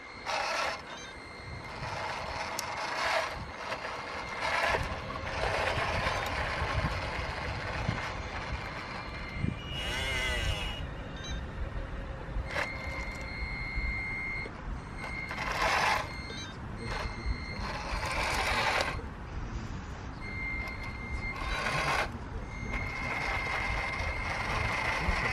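1:16 scale radio-controlled M32 Sherman recovery tank working its crane boom and driving. A steady high-pitched whine starts and stops several times over a continuous low running noise, with a warbling, wavering pitch about ten seconds in.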